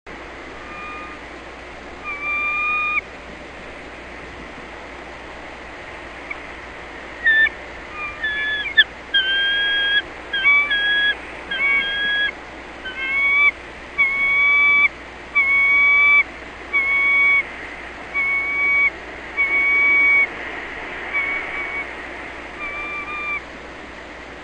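Bald eagle calling at the nest: loud, high whistled notes, one about two seconds in, then a run of about a dozen at roughly one a second. A steady surf-like hiss runs underneath.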